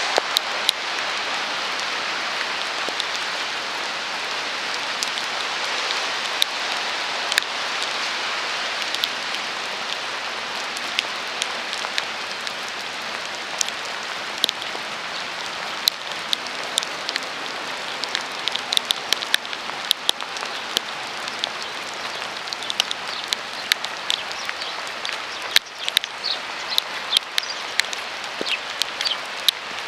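Steady rain hissing, with frequent sharp ticks of drops striking close by; the ticks come thicker in the second half.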